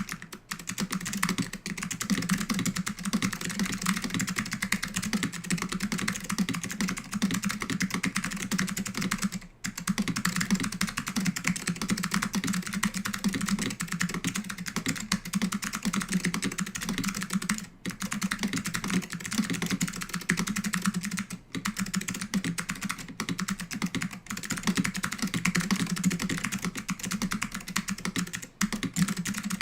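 Fast, continuous typing on a mechanical keyboard with clicky SKCM Blue Alps switches and PBT dye-sub keycaps from a Japanese Apple Extended Keyboard II, a dense run of sharp key clicks broken by a few brief pauses.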